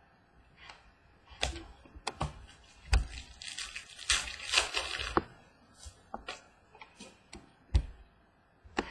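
Trading cards being handled over a wooden table: scattered light taps and clicks, with a few seconds of cards rustling and sliding against each other in the middle.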